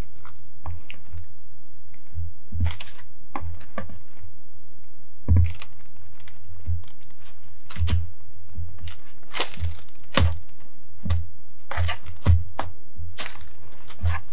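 Dough handling on parchment paper: soft rustling and crinkling of the baking paper with light crackles at irregular moments as strips of cinnamon-sugar dough are lifted and twisted, over a steady low hum.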